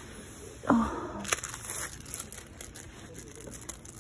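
Plastic-wrapped merchandise being handled: crinkling and rustling, with a loud sudden rustle less than a second in and a sharp click just after.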